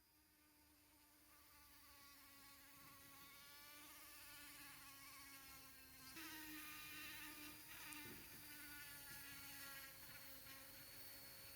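Electric pedestal fan motor running with a steady buzzing hum, swelling over the first few seconds as it comes up to speed and growing a little louder about six seconds in.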